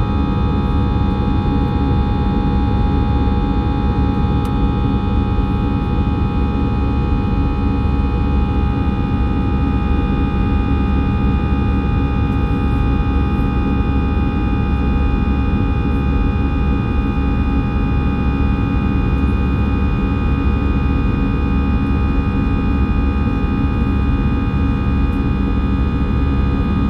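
Steady cabin noise inside an Airbus A320 climbing after take-off: a loud, even rush and low rumble with several steady whining tones from the jet engines over it.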